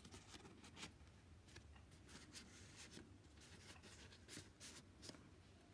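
Faint rustling and light ticks of paper and card being handled as journal pages and tags are lifted and turned.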